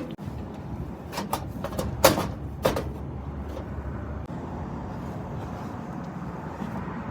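A few sharp knocks and clatters of tools and parts being handled while a replacement combustion (inducer) motor is fitted to a gas-fired rooftop unit, over a steady low rumble that eases about four seconds in.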